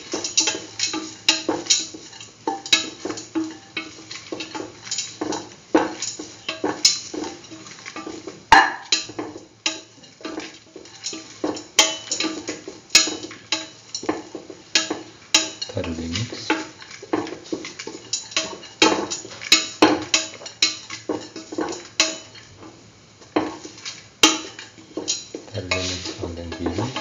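Wooden spatula scraping and knocking against a metal pan, stirring a sauté of grated coconut and chickpeas in quick, irregular strokes.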